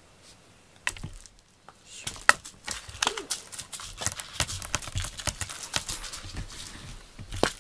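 Rapid, irregular scratchy clicks and rustling close to the microphone, as a cat scrabbles and paws at the fabric of its fleece-lined cat bed.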